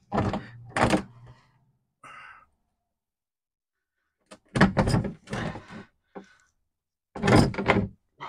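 Heavy knocks and thunks from working loose the oil pan drain plug under a 1939 Chevrolet: two at the start, a loud cluster about halfway, and another near the end, with silence between.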